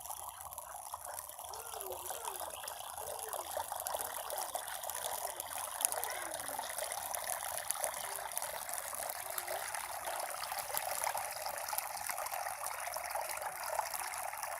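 Water trickling and splashing steadily down a small pump-fed cement mini waterfall into its basin.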